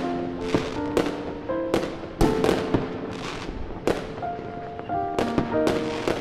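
Aerial fireworks going off: sharp, irregular bangs about two a second, many followed by a crackling fizz, over music with held melodic notes.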